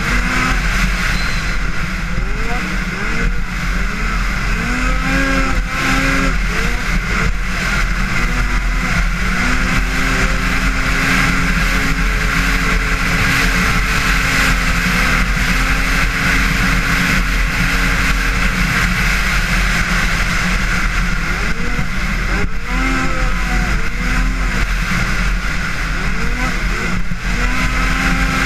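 Arctic Cat 8000 XF High Country Limited snowmobile, an 800cc two-stroke twin, running hard at speed. The engine pitch rises in quick repeated sweeps early and late as the throttle is worked, and holds steady for about ten seconds in the middle, over a constant rushing noise.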